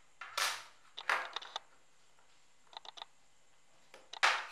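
Plastic clicks and snaps from a quartz wall-clock movement's housing being handled and taken apart: three louder snaps, about half a second in, a second in and near the end, with light clicks between.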